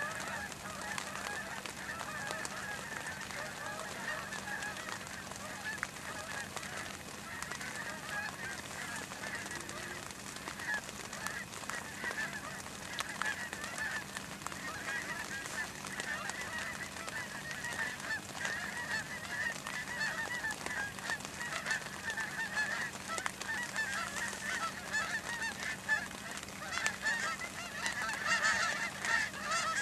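A large flock of geese in flight, honking continuously in a dense chorus of overlapping calls that grows louder near the end as the birds come closer.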